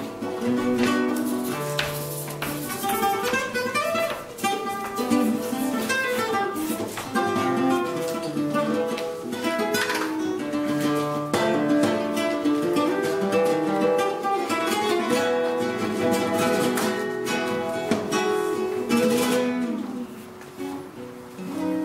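Acoustic guitar playing: a continuous flow of plucked notes and chords.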